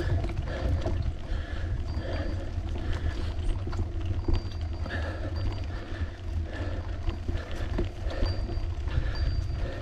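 Wind rumbling on the microphone while riding a bicycle, with a faint rhythmic sound repeating about twice a second.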